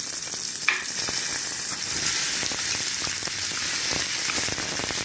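Onion slices frying in melted butter in an aluminium pan, sizzling steadily while being stirred with a wooden spoon. One short sharp knock under a second in.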